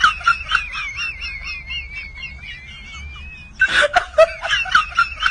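High-pitched snickering laugh: a rapid run of squeaky, wavering 'hee-hee' pulses that fades, then a louder burst of the same near the end.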